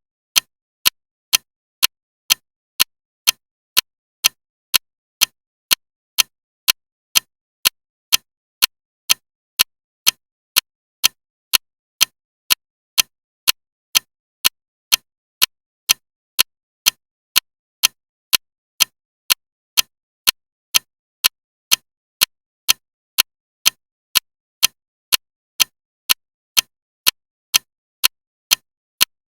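Loud clock ticking: sharp, evenly spaced ticks a little over one a second, with dead quiet between them.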